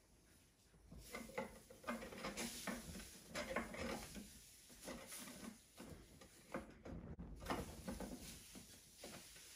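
Rustling of a terry-cloth towel being handled and shifted over a tin can, with many small clicks and soft knocks, starting about a second in.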